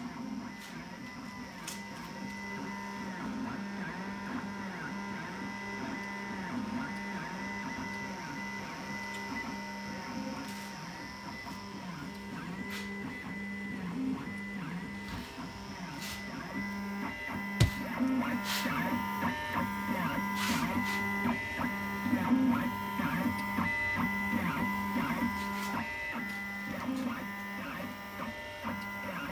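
Home-built CNC router running a job: its stepper motors whir in short tones that rise and fall in pitch as the axes speed up, slow down and change direction, over a steady hum. A single sharp knock comes a little past the middle.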